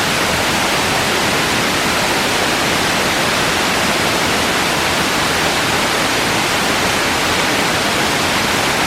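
Tall branching waterfall, about 60 metres high, pouring down a rock face: a steady, unchanging rush of falling water.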